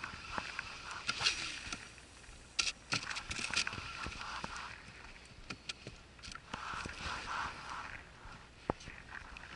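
Water lapping and splashing lightly against the side of a boat, with scattered small clicks and knocks.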